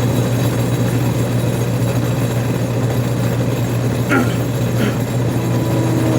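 Alternator spinning on an OTC Judge 2 bench tester, belt-driven by the tester's electric drive motor: a loud, steady hum with a whirring rush. A higher tone comes in near the end and starts to sag. The faulty alternator is loading the drive down, which the tester's operator takes for it bogging the machine down.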